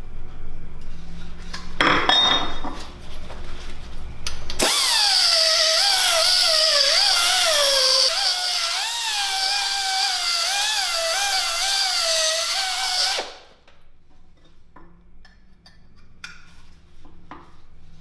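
Small air-powered pencil die grinder running with a high whine and air hiss, its pitch sagging and wobbling as the bit bears into a cast bicycle lug, opening out the lug's bore for a slip fit on the tube. A brief noisy burst comes about two seconds in; the grinder starts about four and a half seconds in and cuts off sharply about thirteen seconds in, leaving light clicks of metal parts being handled.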